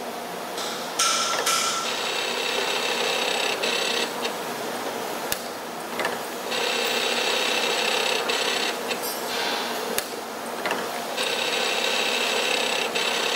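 Simco CNC-620R wire spring-forming machine cycling: its tool slides run with a high whine in three stretches of two to three seconds each, separated by short pauses and a few sharp clicks.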